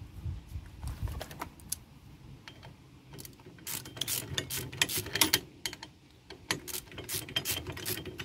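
Hand ratchet wrench clicking in quick runs of strokes as the brake caliper bracket bolts are run in. The clicks are sparse at first and come thicker and louder from about halfway through.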